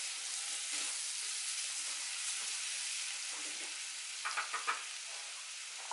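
Amla (Indian gooseberry) slices with green chillies sizzling steadily in hot oil in a steel kadhai over a very low gas flame. A few brief clinks come about four seconds in.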